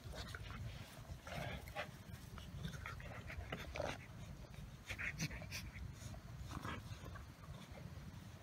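An Alaskan Malamute and a German Shepherd puppy play-fighting: dog panting, with short scattered noises from the tussle, a few louder ones about halfway through.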